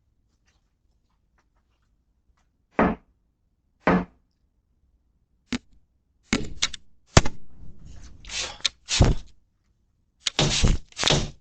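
Knocking and banging on a door: a few single knocks spaced about a second apart, then faster clusters of heavy blows about halfway through.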